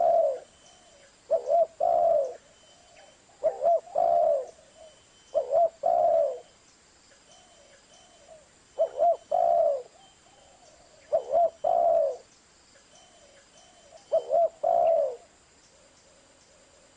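Spotted dove (Streptopelia chinensis) cooing: repeated two-part phrases, each a short coo followed by a longer, slightly falling coo, coming roughly every two seconds. There is a pause of a couple of seconds midway, and the calls stop about two seconds before the end.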